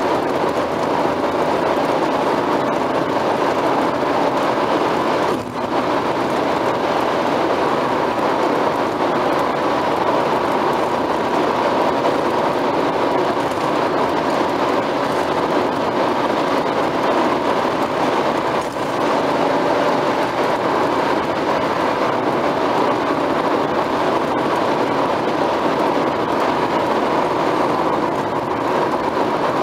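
Steady tyre and road noise inside a car's cabin at motorway speed, dipping briefly twice.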